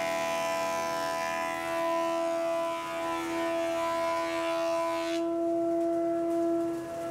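Thickness planer running with a steady whine while a glued-up wooden panel passes through the cutterhead. The hiss of the cut stops suddenly about five seconds in as the panel clears the knives, and the machine runs on.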